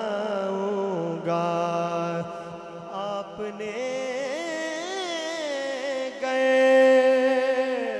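Man singing a Punjabi naat (a devotional song in praise of the Prophet) into a microphone, drawing out long wavering notes in a chant-like melody. The longest, loudest held note comes near the end.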